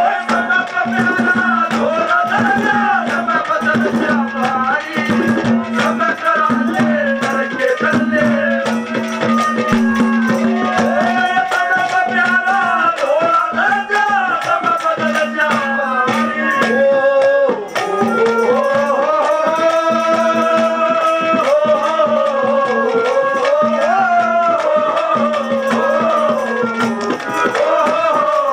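Live ragni music: hand-drum strokes and a melodic line over a steady held drone.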